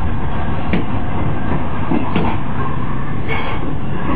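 Nuremberg U-Bahn DT1 metro train with three-phase drive running on the track, heard from inside the driver's cab: a steady heavy rumble with a few sharp clicks about a second apart.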